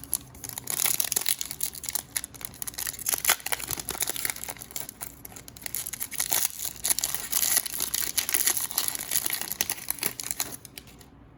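A trading card pack's plastic wrapper being torn open and crinkled: a continuous crackling of many small clicks that stops about a second before the end.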